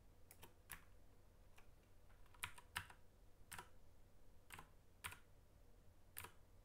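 Faint, scattered clicks of a computer keyboard and mouse, about ten of them, unevenly spaced.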